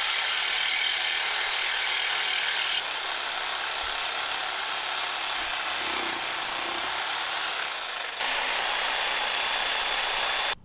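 Handheld electric saw running and cutting into a seized steel bolt, a steady harsh cutting noise with a thin high motor whine. It shifts slightly about three seconds in, dips briefly around eight seconds, and stops abruptly at the very end.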